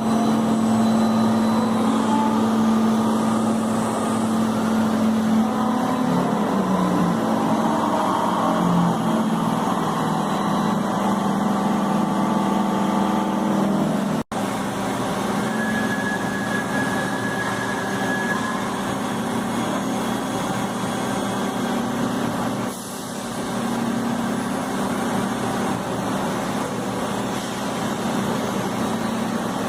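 Ride-on floor scrubber running: a steady motor hum with a whine, its pitch wavering about a quarter of the way through. The sound cuts out for an instant about halfway through.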